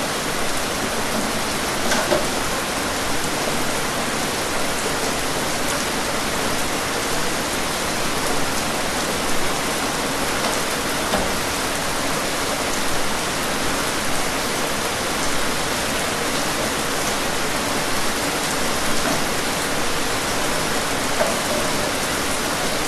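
Steady rain falling: an even hiss, with now and then a sharper drop tap.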